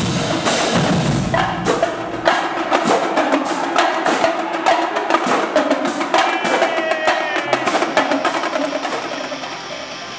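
Marching band drumline playing snare and tenor drums: fast strokes, rolls and sharp stick clicks, with a few high ringing bell-lyre notes past the middle. It fades out near the end.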